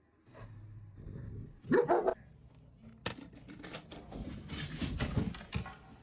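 A dog gives two short barks about two seconds in. Scuffling and clattering noises follow for the rest of the time.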